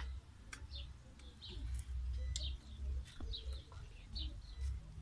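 A small bird chirping: short, high chirps repeated roughly once a second, over a low rumble on the microphone.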